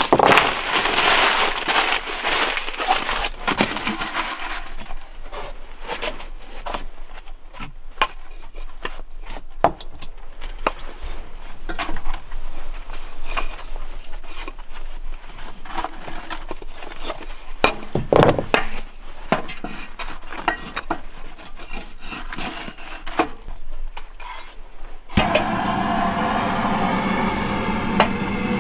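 Paper crumpling, then wooden kindling sticks knocking against each other and the cast-iron stove as they are stacked in the firebox. Near the end a propane torch starts and burns with a steady hiss to light the kindling.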